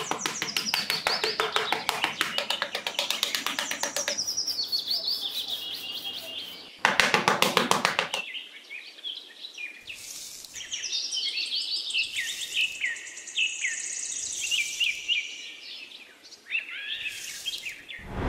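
Birds chirping and singing. A fast run of clicking, whistled notes comes first, then a short loud call about seven seconds in, then many short, repeated downward chirps.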